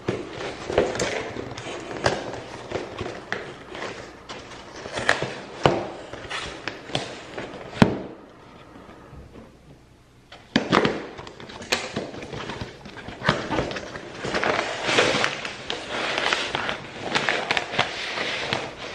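A cardboard shipping box of plants being unboxed by hand: packaging rustling and crinkling, with frequent knocks, taps and scrapes and a short lull about eight seconds in.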